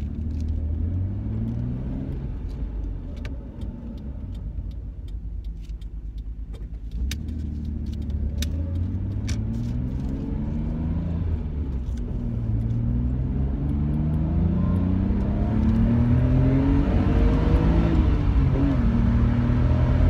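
Nissan Skyline R32 GT-R's twin-turbo straight-six heard from inside the cabin while driving, accelerating through the gears: the engine note climbs, drops back at each upshift and climbs again several times, growing louder toward the end.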